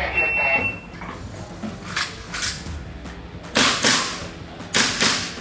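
Airsoft gas pistol firing during a practical-shooting stage: sharp shots in a few quick groups from about two seconds in, the densest string a little past halfway. A faint high beep sounds through most of the first second.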